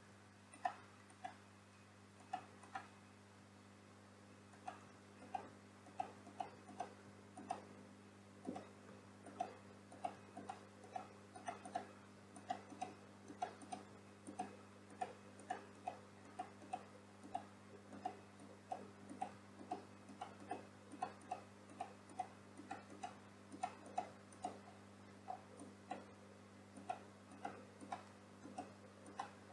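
Faint computer mouse clicks, scroll-wheel ticks and keyboard key presses at an irregular pace of about two or three a second, over a low steady electrical hum.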